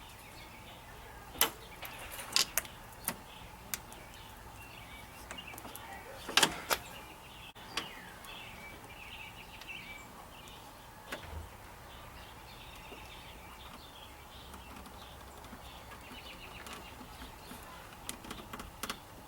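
Scattered clicks and knocks of hand-worked latch parts, as a door latch cable end is worked onto a truck door latch mechanism. Most of the clicks fall in the first half, with a few more near the end.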